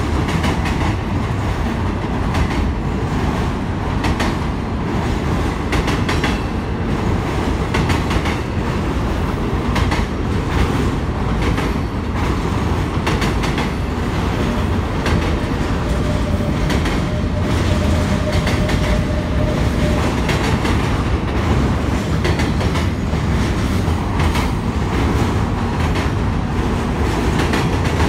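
Double-stack container freight train rolling across a steel railroad drawbridge: a steady deep rumble with repeated clicking of wheels over rail joints. A faint thin whine rises over it for a few seconds past the middle.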